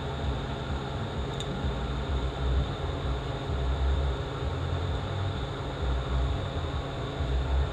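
Steady low rumble of background shop machinery, with a faint click about a second and a half in.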